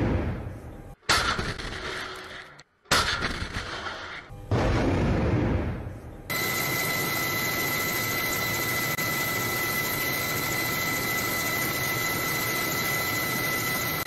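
Four loud blasts from a warship's weapons firing, about one and a half seconds apart, each starting sharply and dying away over a second or more. From about six seconds in, a steady rushing hiss with a high steady whine takes over.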